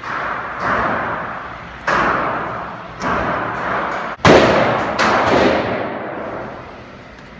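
Gunshots on a shooting range: about five shots spaced roughly a second apart, the loudest a little past the middle, each followed by a long echoing decay.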